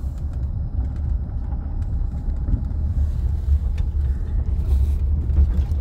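Jeep driving over a rough gravel track, heard from inside the cab: a steady low rumble of engine and tyres with faint scattered ticks.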